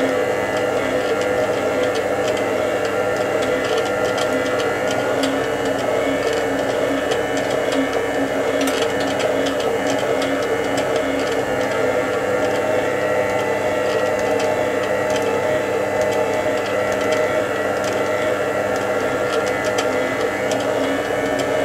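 Rawmid planetary stand mixer running on its second speed, its motor driving the pasta roller attachment as a sheet of dough passes through the steel rollers: a steady mechanical hum and whine.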